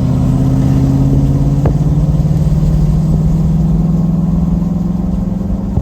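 Pickup truck's exhaust droning: a loud, steady tone that slowly rises in pitch as the truck drives. It is a recurring, unexplained noise that the owner blames on the exhaust but has not been able to trace.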